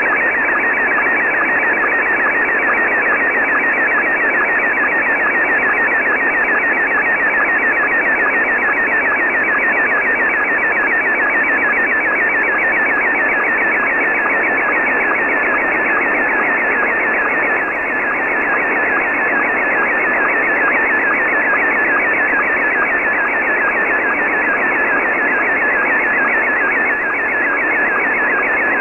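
Weak, noisy slow-scan television (SSTV) signal in Scottie 1 mode, heard from a shortwave receiver in lower sideband: a rapid, endlessly repeating warble of image tones, one scan line after another, buried in steady hiss. The sound is thin and narrow, with no highs.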